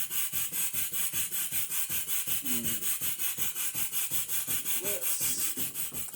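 Half-horsepower Sipp steam engine running, its exhaust chuffing in a steady, even rhythm of about seven hissing beats a second as it drives a miniature table saw.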